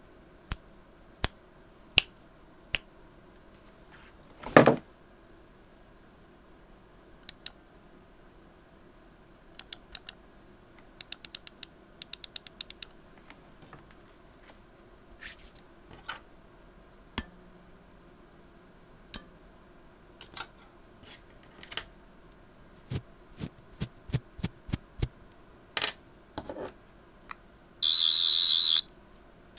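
Keystrokes on a Ducky One 2 Mini keyboard with linear Cherry MX Red switches: single presses at uneven intervals, a quick run of about eight keys around a third of the way in, and a louder stroke about four seconds in. Near the end comes a loud buzz lasting about a second.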